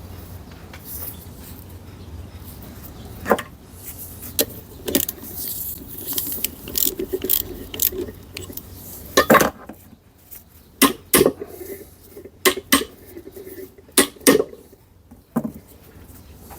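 Metal parts and hand tools clinking and knocking during manual gearbox repair work: a run of sharp, irregular knocks and clinks, the loudest about nine seconds in and several more between eleven and fourteen seconds, over a low steady hum.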